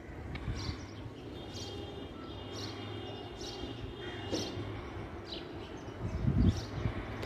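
Birds chirping repeatedly over steady outdoor background noise, with a few low bumps near the end.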